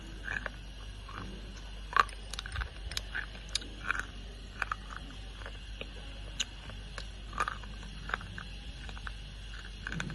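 Wet slate pencils being bitten and chewed close to the microphone: irregular sharp crunches, a few a second, the loudest about two seconds in.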